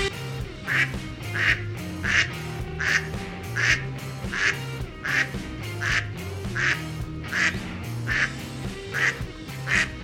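Duck quacking, a string of single quacks about one every three quarters of a second, over background music.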